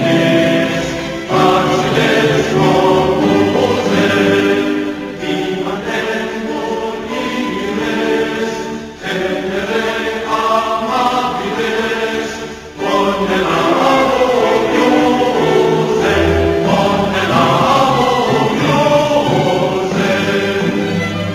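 Background music of a choir singing long, sustained phrases, with short breaks between phrases about a second, nine and thirteen seconds in.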